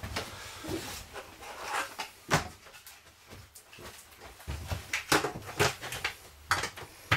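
Plastic homebrew fermenter and its lid being handled: rustling and scraping with several sharp plastic knocks, the loudest about two seconds in, and a cluster of knocks near the end.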